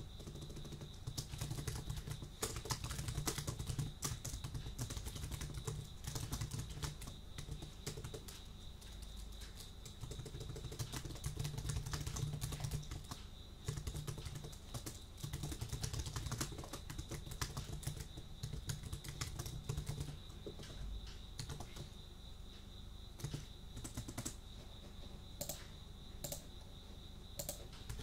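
Typing on a computer keyboard: quick, uneven runs of key clicks with short pauses between them. A steady, high cricket trill runs underneath.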